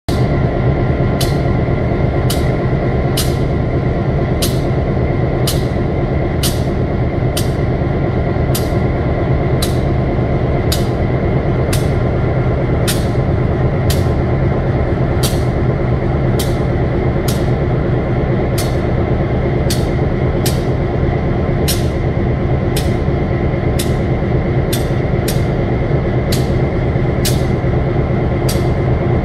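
EMD F7 diesel locomotives passing slowly: a loud, steady low drone from their 16-cylinder two-stroke 567 diesel engines, with a thin high whine on top. Sharp clicks come roughly one to two times a second as the wheels roll along the rails.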